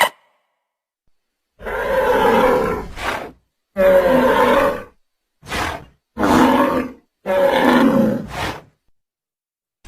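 Creature roar sound effects: a series of about six short, rough roars in quick succession after a second and a half of silence, each under a second and a half long.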